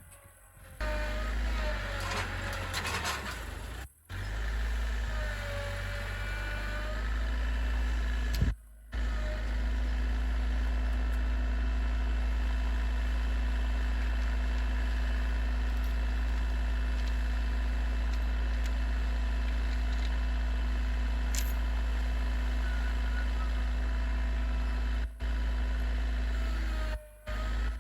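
Tractor engine running, its pitch wavering for the first several seconds and then holding steady, over a heavy low rumble. The sound cuts out briefly a few times.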